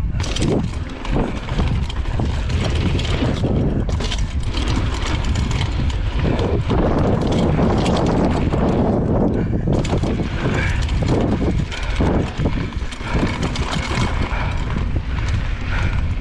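Mountain bike riding fast down a dirt jump trail: wind rushing over the microphone, tyres on dirt, and the bike rattling over bumps.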